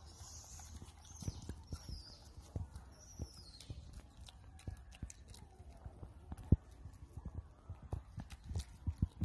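Newborn macaque suckling at its mother's nipple, making irregular wet clicks and smacks about two a second, one sharper than the rest past the middle. Faint high chirps sound over the first few seconds.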